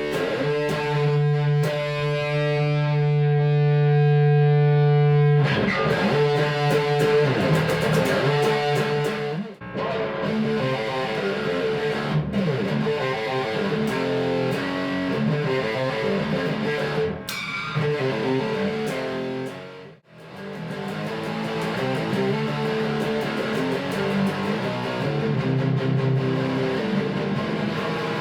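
Electric guitar played through the second channel of a Diezel VH4-2 distortion pedal: a distorted chord rings for about five seconds, then fast riffing follows, with two short stops along the way.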